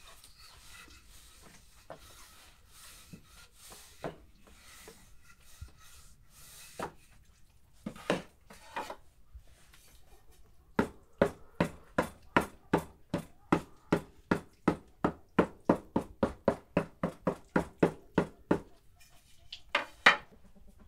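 Long thin wooden rolling pin knocking on a wooden dough board as saj bread dough is rolled out thin. At first there are soft rubbing sounds and a few scattered knocks. Then comes a steady run of about three sharp wooden knocks a second for some eight seconds, and one more loud knock near the end.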